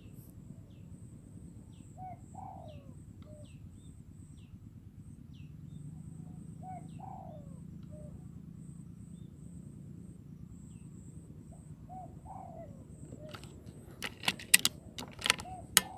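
Spotted dove cooing, one short phrase about every five seconds, with faint chirps from small birds. Near the end come several sharp, loud clicks.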